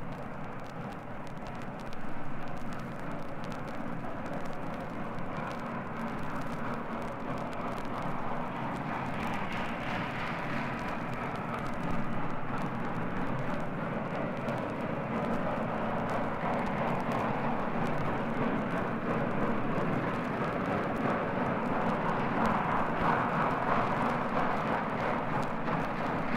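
Steam locomotive at work, a steady rush of exhaust and running noise that slowly grows louder, with the faint surface crackle of a vinyl record.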